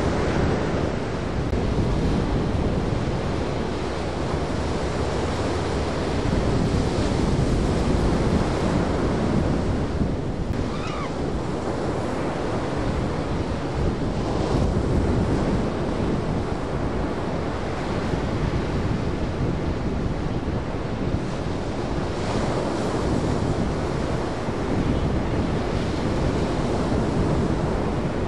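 Ocean surf breaking at the beach, with wind on the microphone; the wash swells and eases every several seconds.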